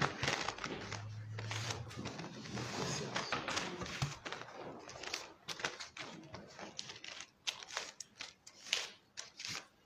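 Paper sheets rustling and crinkling as they are handled, with scattered small clicks and knocks.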